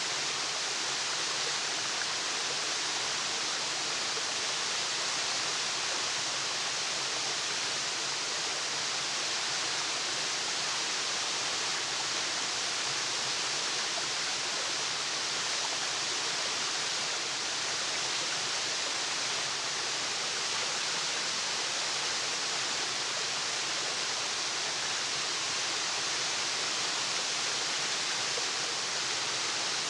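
Waterfall: a steady, unbroken rush of falling water, hissy and bright, with no change in level.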